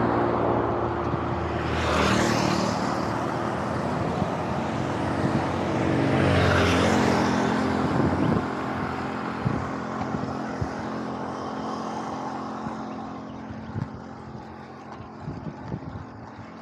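Motor traffic passing a cyclist on a hill road: engine hum and tyre noise swell twice, about two and seven seconds in, then fade away to a quieter hiss with a few faint knocks near the end.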